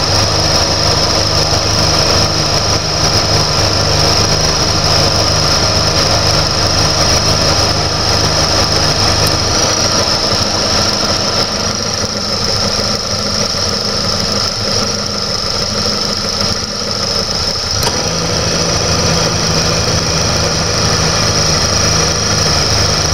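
Mercedes-Benz W124 four-cylinder engine idling, with a steady high whine. Its low note changes about halfway through, and changes again just after a sharp click about three-quarters of the way in: the A/C relay switching the compressor clutch and its load on the engine.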